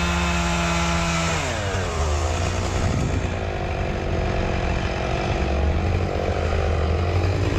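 Stihl 661 chainsaw running at full throttle. About a second and a half in, its pitch drops as the chain bites into the walnut trunk, and it keeps cutting under load.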